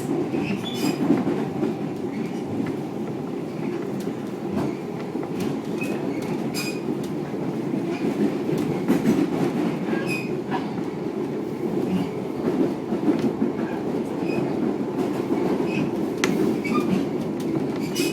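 Train running, heard from inside the carriage: a steady rumble of wheels on the track with scattered clicks.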